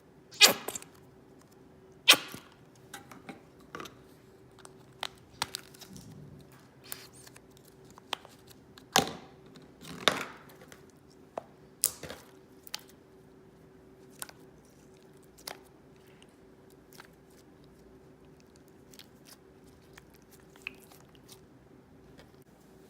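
Slime being squeezed and stretched by hand, giving scattered sharp crackles and pops that thin out in the second half, over a faint steady hum.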